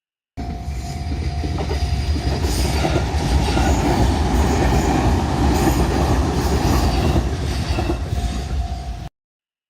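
A train passing close by over a level crossing: a loud, steady rumble and rattle of wheels on rail that builds over the first couple of seconds and then holds. A steady high tone can be heard under it at the start and again near the end.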